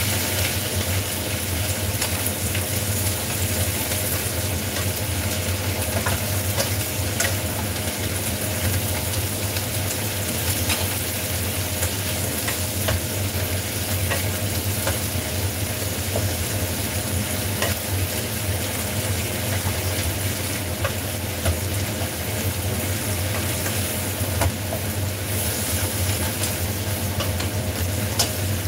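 Cabbage sizzling as it is stir-fried in a wok, with a wooden spatula and chopsticks now and then clacking and scraping against the pan, over a steady low hum.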